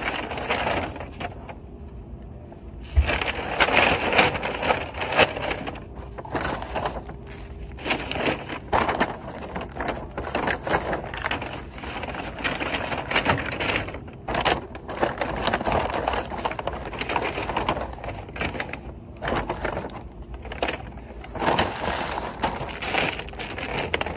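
Brown paper shopping bags rustling and crinkling as they are opened, filled and handled, in a run of short, irregular crackly bursts.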